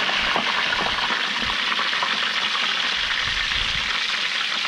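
Squid deep-frying in a lidded pot of hot oil on a portable gas stove: a steady, dense sizzle full of fine crackles.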